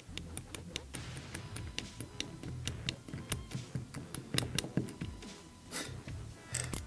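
Small irregular clicks and ticks of a metal tool working on a rebuildable vape atomizer's coil deck, with handling rumble and a couple of louder scrapes near the end.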